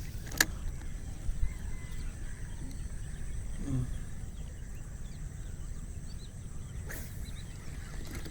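Outdoor ambience: a steady low rumble with faint, short high chirps scattered through it. Two sharp clicks, one near the start and one about seven seconds in, and a short low falling sound about three and a half seconds in.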